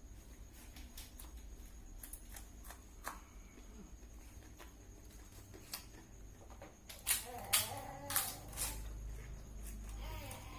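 Eating fried rice: scattered small clicks and smacks of mouth and spoon, growing louder and busier in the last few seconds, where short wavering pitched sounds mix in.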